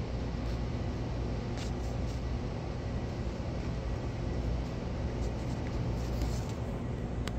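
A steady low rumbling hum with a few faint clicks.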